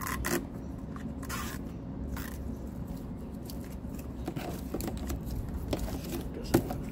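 Adhesive tape backing being peeled and picked at by hand: short scraping, rustling strokes, with one sharp click near the end.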